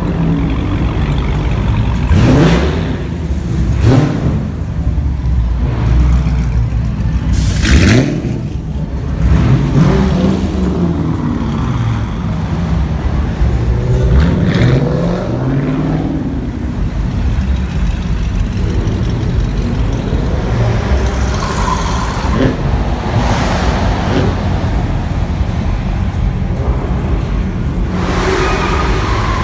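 Dodge Charger and Challenger V8 engines being revved through their exhausts, one car after another. It opens with repeated sharp blips that rise and fall in pitch, then settles into steadier running with occasional revs.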